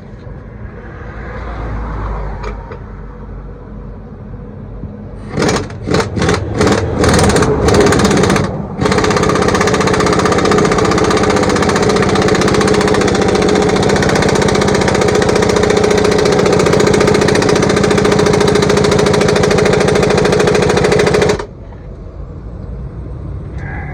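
Air impact wrench hammering on driveshaft yoke bolts: several short bursts, then one long run of about twelve seconds that cuts off suddenly.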